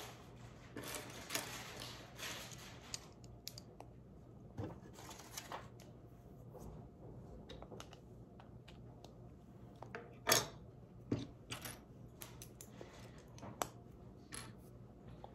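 Plastic Lego pieces clicking and rattling as they are handled and pressed together, with bursts of rustling in the first few seconds and again about five seconds in. The sharpest click comes about ten seconds in.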